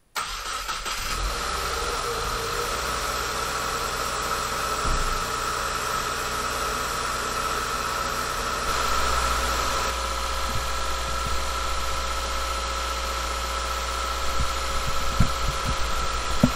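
2020 Subaru WRX's turbocharged flat-four engine idling steadily with a constant high whine over it, run with the radiator filler open so the freshly filled cooling system can burp out trapped air. A few light knocks come near the end.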